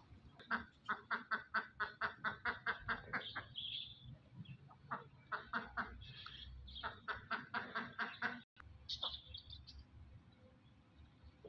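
Farmyard fowl calling in two long runs of rapid, evenly repeated sharp calls, about six a second: one in the first three seconds and another from about five to eight seconds in. A few high chirps follow about nine seconds in.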